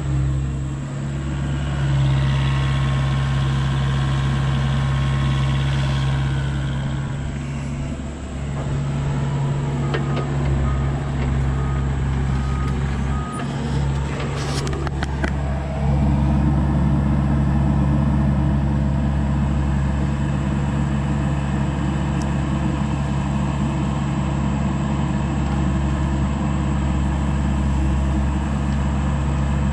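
Doosan DX63 mini excavator's diesel engine running while it digs, with a high whine over it for the first few seconds. A short row of beeps comes about ten seconds in, then a clank, and from about sixteen seconds the engine runs harder and louder.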